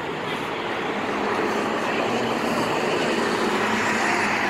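A 2012 Nova Bus LFSA articulated city bus driving past and pulling away, its engine and tyres making a steady noise that grows a little louder.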